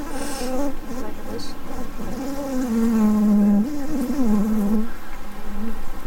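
Honey bees buzzing around an opened hive. The buzz wavers up and down in pitch and is loudest and steadiest about three seconds in.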